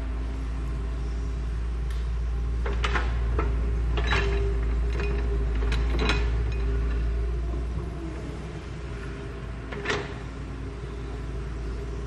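Excavator's diesel engine running steadily as a low rumble while it digs, with a few sharp knocks.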